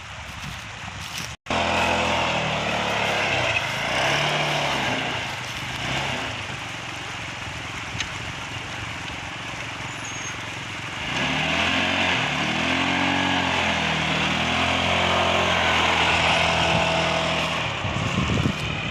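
ATV engine running as it is ridden, its revs rising and falling with the throttle; the sound cuts out for an instant about a second and a half in.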